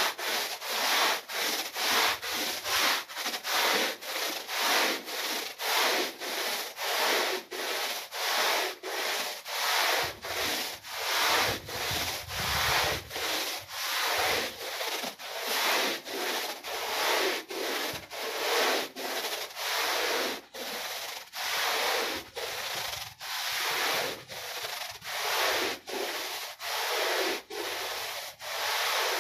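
Long-handled push brush scrubbing a wet, soapy rug in steady back-and-forth strokes, a regular swishing scrub a little under two strokes a second.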